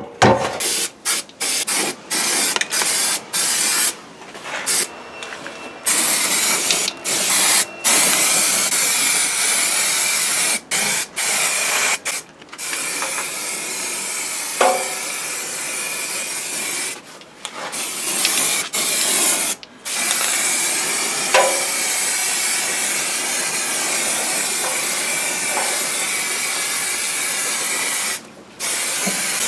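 Aerosol spray paint can hissing as it sprays: a run of short spurts, then long continuous sprays broken by a few brief pauses.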